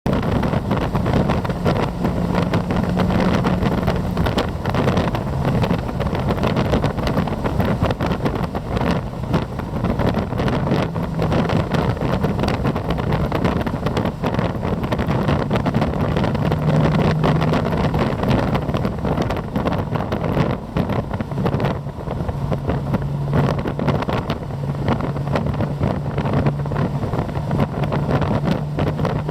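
Heavy wind buffeting on the microphone in an open-topped Morgan Plus Six at speed, with the car's engine droning steadily underneath.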